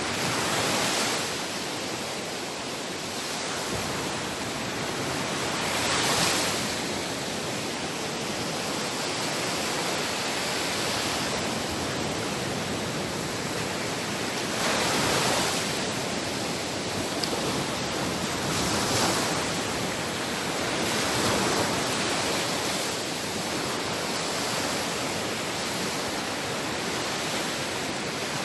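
Sea waves washing onto a shore, a steady surf hiss that swells as a wave breaks every few seconds, loudest about six seconds in and again around fifteen and nineteen seconds in.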